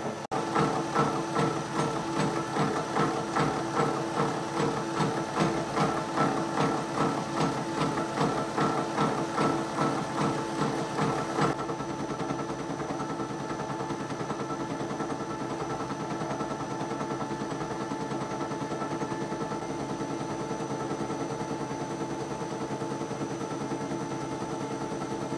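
Sheldon Vernon horizontal milling machine taking a power-fed cut on a T-nut blank with a dull arbor-mounted milling cutter, the cut pulsing about two to three times a second. About eleven seconds in the pulsing stops and the mill runs on with a steady hum.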